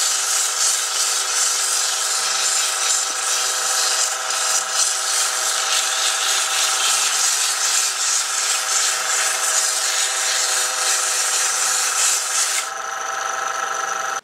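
Sandpaper held against a whiskey-barrel-stave pen blank spinning on a wood lathe: a steady sanding hiss over the steady whine of the lathe. The sanding stops near the end while the lathe keeps running.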